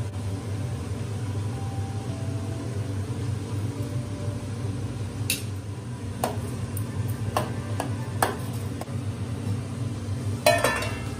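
Metal spoon clinking against a stainless steel cooking pot while stirring: a few separate sharp clinks in the second half and a quick cluster of louder ones near the end, over a steady low hum.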